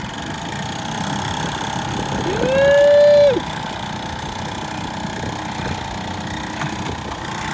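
A tiny Johnson 1.2 hp two-stroke outboard running steadily while it is swung round on its mount to go in reverse. About two seconds in, a loud held tone rises, holds for about a second and drops away.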